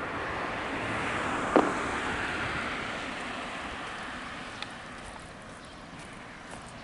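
Outdoor background noise after the chime has ended: a steady rushing hiss that slowly fades, with a single short knock about a second and a half in.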